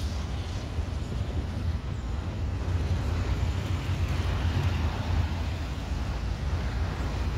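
Wind rumbling steadily on the microphone, over the even, distant roar of an Airbus A321neo airliner's jet engines on its approach.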